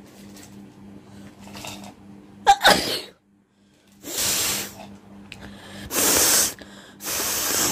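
A person sneezes once, sharply and with a voiced cry, about two and a half seconds in. Three forceful hissing nose blows follow, each about half a second long, the second the loudest.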